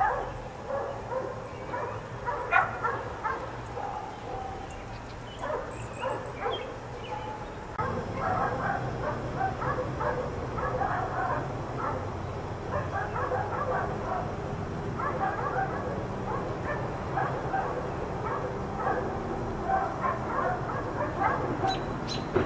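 Several dogs barking over and over, the barks overlapping, with some higher yips. A steady low hum comes in about eight seconds in.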